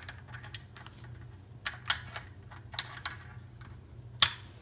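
Plastic tilt wand stem being pushed into the hook on a blind's head rail: a run of small clicks and taps, then a sharp, louder click about four seconds in as the stem snaps into place.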